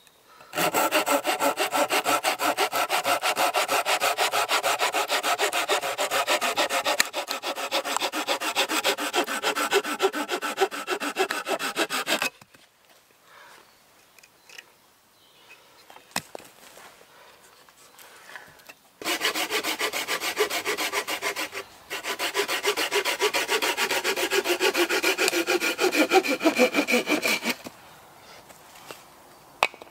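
Small hand saw cutting through a dead oak branch with fast, even strokes. One run of sawing lasts about twelve seconds, stops for several seconds, then a second run of about eight seconds follows with a brief break partway through.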